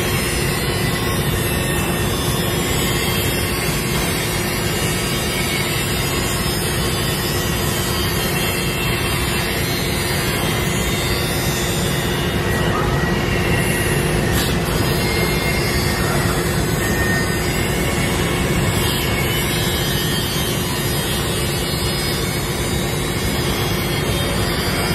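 High-speed spindles of a KMT RoboTrim six-axis robotic trim router running as the robots trim parts with small cutting discs and router bits. It is a steady machine noise with a continuous tone running through it.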